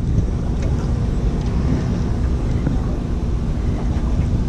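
A boat motor running steadily: a low drone with a constant hum through it, without a break.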